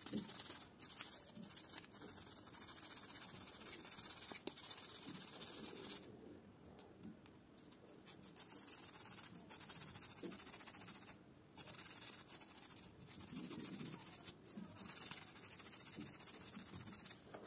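Faint scratchy rubbing and scraping in uneven strokes as a dirty, rusty e-bike part is scrubbed clean by hand. It pauses for about two seconds around six seconds in.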